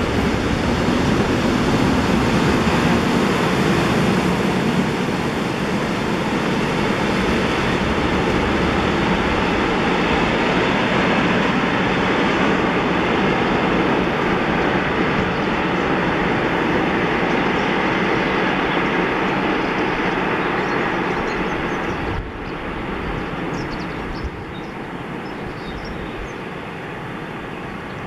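Freight train of tank wagons rolling away on the rails: a steady rumble of wheels on track that slowly fades as the train recedes, then drops off suddenly about three-quarters of the way through.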